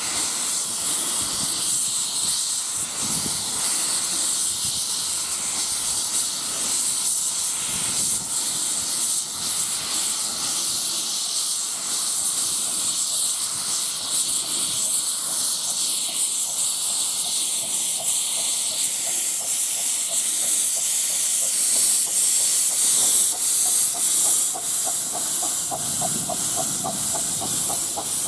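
A 15-inch-gauge miniature steam locomotive hissing steam, with its cylinder drain cocks blowing as it moves off. The hiss swells near the end as the engine draws close, and a fast regular beat joins in over the last few seconds.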